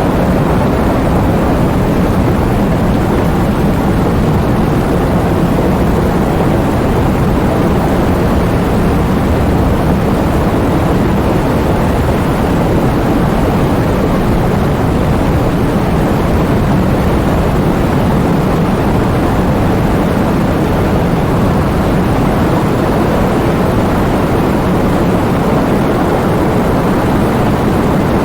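Heavy rain falling in strong wind, a steady loud rushing noise weighted toward the low end, with no breaks or separate drops standing out.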